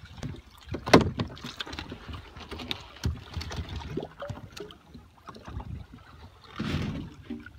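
Water slapping and gurgling against a plastic kayak's hull, with scattered knocks and clunks on the hull, the loudest a sharp knock about a second in.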